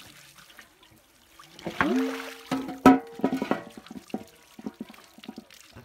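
Faint splashing and dripping of water as goat tripe is rinsed in a metal basin. About two seconds in, a short burst of music with steady held notes and a sharp click becomes the loudest sound.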